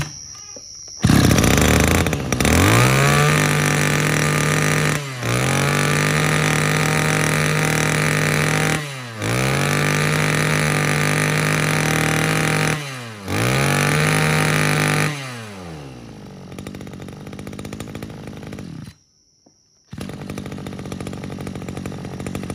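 Maruyama MB320 32cc two-stroke brush cutter engine revved at full throttle in four long steady stretches, its pitch falling briefly and climbing back between them as the throttle is let off and squeezed again. It then drops to a rougher, quieter idle, cuts out for about a second, and runs faintly again near the end.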